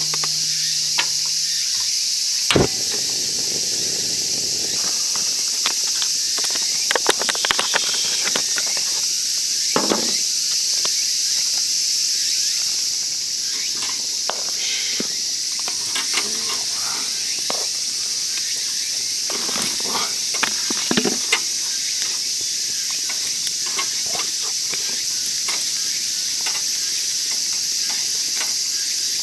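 Insects chirring steadily. On top of it comes a sharp click about two and a half seconds in, as of the cassette gas stove's igniter, then scattered light clicks and knocks as small fish are laid on the stove's wire grill.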